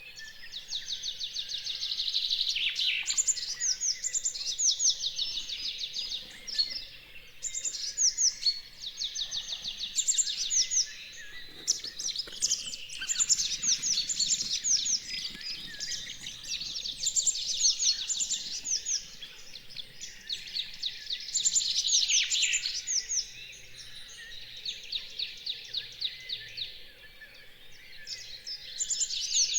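Dawn chorus of songbirds. One bird dominates, repeating phrases of rapid, evenly spaced high notes about two to three seconds long with short pauses between, while other birds call more faintly underneath.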